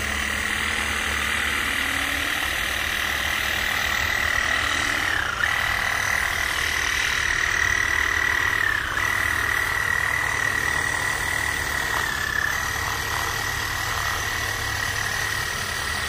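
A reciprocating saw (Sawzall) fitted with a length of tubing, running steadily as it drives a radial wire through the soil. Its motor whine dips briefly in pitch three times as it bogs under load.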